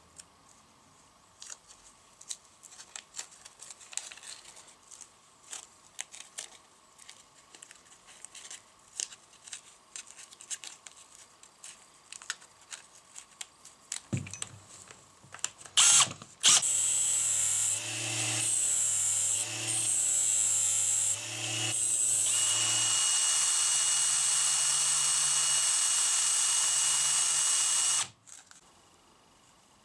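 Light clicks and handling noises from small parts, then a cordless drill running in several short bursts at shifting speeds, followed by a steady run of about five seconds that stops suddenly.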